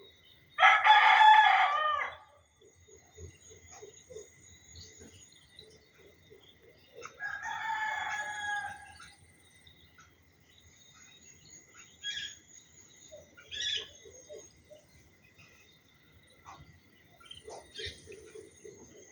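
A rooster crowing: one loud crow about a second in and a second, fainter crow near the middle, with short bird chirps scattered through the background.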